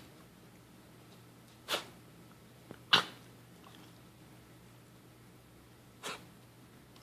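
An animal coughing: three short, sharp coughs a few seconds apart, the middle one the loudest.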